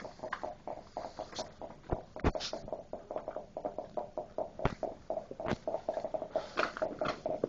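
Close handling noise from clear protective film being pressed and tucked around a truck grille's slats: a dense run of short rubs and ticks, with a few sharper knocks.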